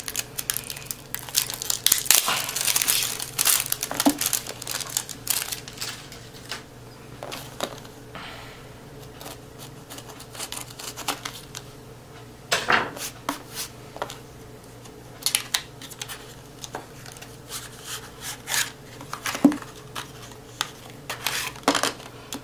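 Cellophane wrapper on a new deck of playing cards being slit with a knife and peeled off, crinkling and tearing densely for the first few seconds, then sparser crackles and clicks as the wrapper and card box are handled.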